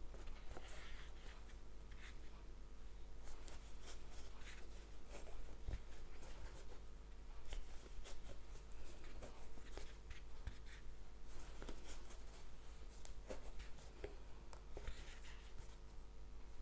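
Faint rustling and scraping of a crochet hook working thick t-shirt yarn through stitches: an irregular run of soft rubs and small clicks over a low steady hum.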